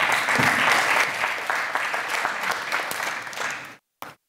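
Audience applauding, a dense patter of many hands clapping that stops suddenly near the end.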